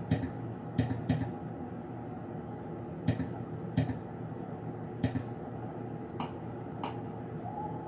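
Scattered light clicks and taps, about eight at irregular intervals, over a steady low hum.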